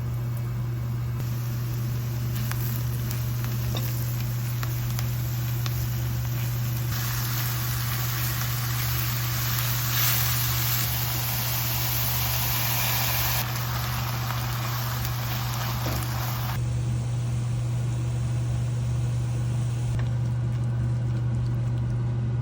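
Steady low mechanical hum, like a motor or fan running, with a hiss over it that changes level in steps a few times.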